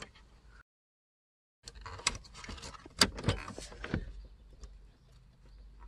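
Plastic wiring-harness plugs and cables rustling and clicking as they are handled and pushed into place behind a BMW F11's centre console trim: a dense run of clicks and knocks, the sharpest about three seconds in. The sound cuts out completely for about a second near the start.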